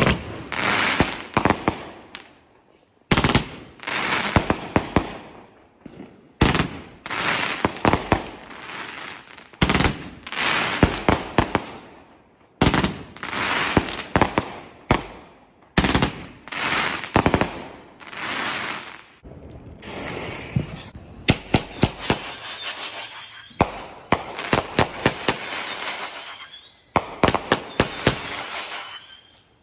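Consumer fireworks going off in rapid volleys: clusters of sharp bangs with crackling, in loud bursts of two to three seconds each, one after another.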